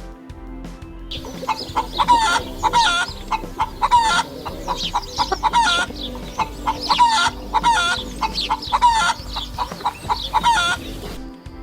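Chickens clucking and squawking: many short calls in quick succession, several a second.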